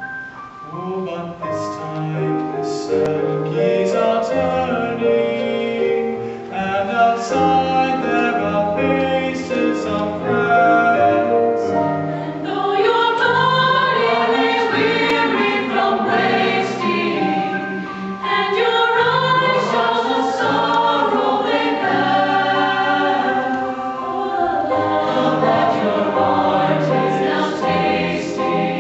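Choir singing a gospel-style song over instrumental accompaniment; the singing grows fuller and brighter about twelve seconds in.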